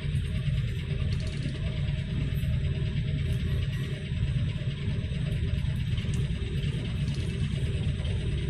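Russian passenger coaches rolling past a platform: a steady rumble of wheels on the rails with an even hiss above it.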